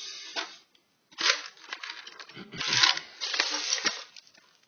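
Small items being handled by hand: rustling and crinkling with sharp clicks and knocks, loudest about three seconds in, then dying away.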